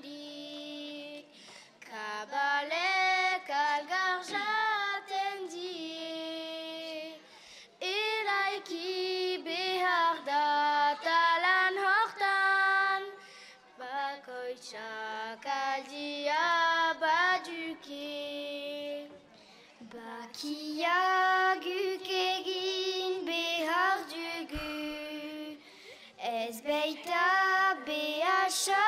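A group of young girls singing a song together into microphones, unaccompanied, in phrases with short breaks between them.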